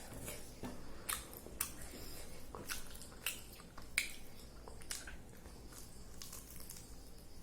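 A person eating: chewing, with scattered short, sharp mouth clicks and smacks.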